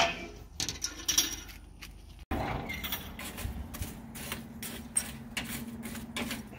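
Scattered light metallic clicks and clinks as food is handled at an open Oklahoma Joe barrel smoker. About two seconds in, the sound cuts abruptly and a faint low steady hum comes in.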